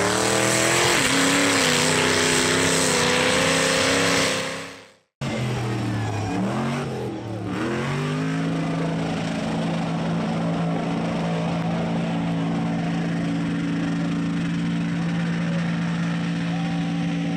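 Mud-bog racing engines at full throttle. First a mud truck's engine revs up and holds high over the hiss of spraying mud, then fades out abruptly about four seconds in. After a short gap a tube buggy's engine revs, dips twice, and from about eight seconds in holds a steady high-rpm drone through the mud.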